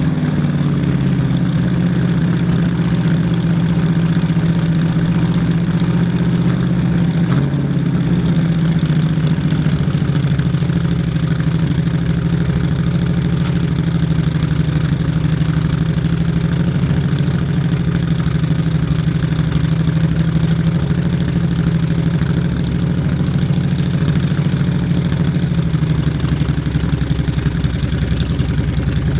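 1970 AMC AMX V8 engine idling steadily, running again after sitting eleven years without being started.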